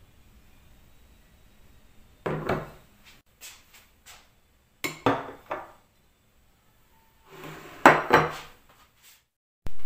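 Dishes and cutlery clattering in three short bursts, with a few lighter knocks between them. A loud sound cuts in right at the end.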